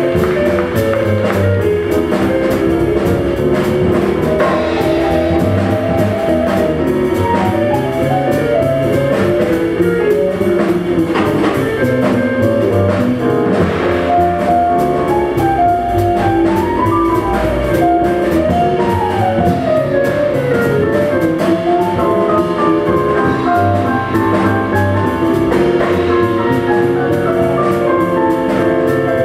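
Live jazz: a stage piano soloing in quick rising and falling runs, backed by plucked upright bass and drum kit.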